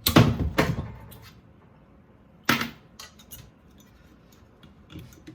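Clatter of hard plastic and metal parts being handled and pulled apart by hand during an ice maker teardown. A rattling burst of several knocks comes in the first second, a single sharp knock about two and a half seconds in, then a few light clicks.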